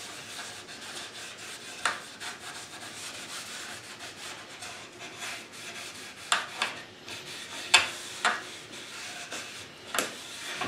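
A soft cloth steadily rubbing finishing oil over a stained wooden guitar body, a generous first coat, with a handful of short sharp clicks scattered through.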